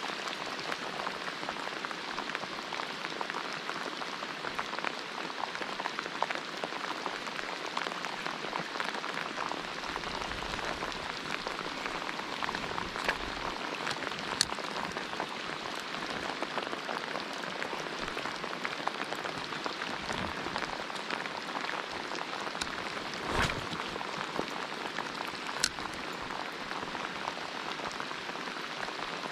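Steady heavy rain, a constant hiss of falling water peppered with individual drops ticking close by. A few sharper taps stand out, and one duller knock comes late on.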